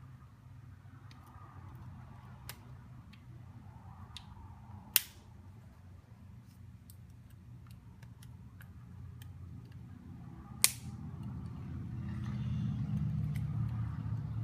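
Metal tweezers slipping off a stuck screw in a smartphone's frame while it is forced out: two sharp snaps about six seconds apart among faint scraping ticks. A low hum grows louder near the end.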